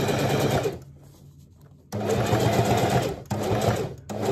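Electric sewing machine stitching a seam through heavy water-resistant cordura fabric, running in bursts: it stops for about a second shortly after the start, then runs again with two very short breaks.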